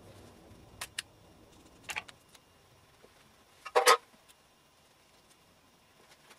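Metal tools and engine parts clinking as they are handled: a few light clicks in the first two seconds, then a louder metallic clank just before four seconds in.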